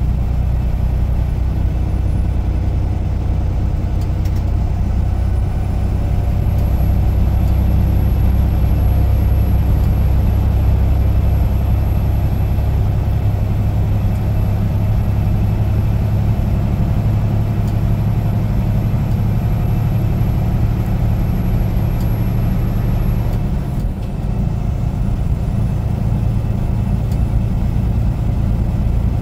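Semi truck's diesel engine running, a steady low drone that dips briefly about two-thirds of the way through.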